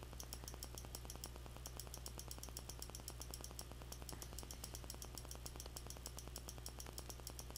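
Faint steady low hum with a fast, evenly spaced ticking over it: electrical background noise of a computer recording setup.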